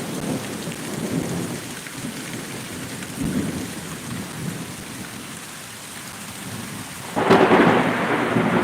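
Rain falling with low rumbles of thunder, then a sudden loud thunderclap about seven seconds in that rumbles on.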